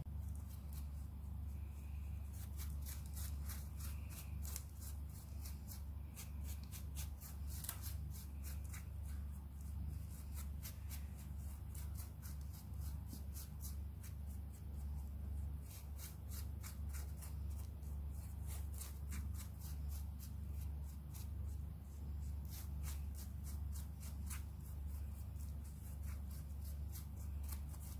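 Hands handling and rubbing a clay-and-foam craft doll: many quick light clicks and rustles, over a steady low hum.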